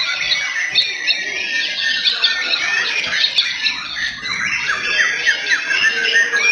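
Several white-rumped shamas (murai batu) singing at once in competition: a dense, overlapping tangle of quick high whistles and chirps.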